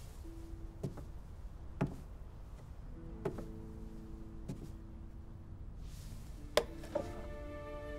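Soft background music with a few sparse held notes, over slow footsteps knocking on a wooden floor about once a second. Near the end come two sharper wooden knocks as a small wooden box is handled on a table.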